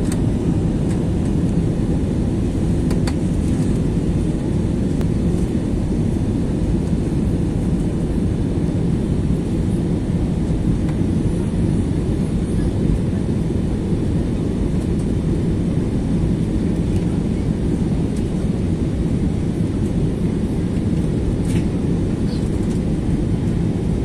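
Steady low rumble inside a jet airliner's cabin during descent: engine and airflow noise heard from a window seat.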